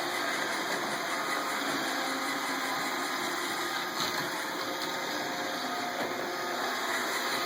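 iRobot Roomba 770 robot vacuum running on its cleaning cycle, a steady whir from its vacuum motor and brushes, with a faint tap about four seconds in.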